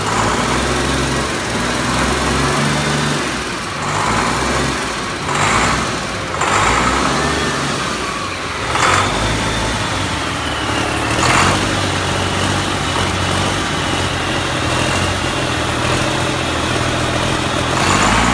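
1999 Cummins ISM-400 inline-six diesel engine running steadily on an engine stand, with a few brief louder bursts of noise over the steady running.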